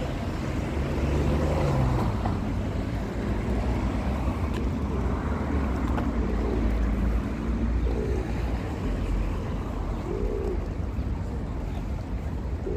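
City street ambience: car traffic passing on the road, a steady low rumble throughout.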